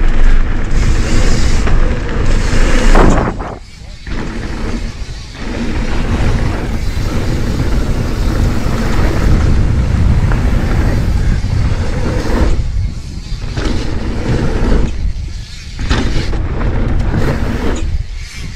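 Wind rushing over the camera microphone and a full-suspension mountain bike's tyres rumbling over a dirt downhill trail at speed. The noise drops away briefly several times.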